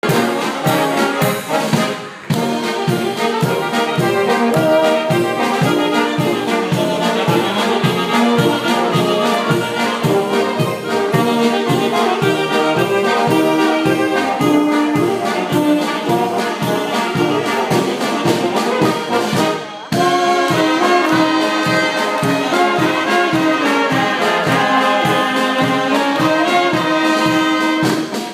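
Brass band playing a lively tune: sousaphone, tubas, trumpets, trombone and saxophone over a drum kit keeping a steady beat. The music breaks off for a moment twice, about two seconds in and again near the twenty-second mark.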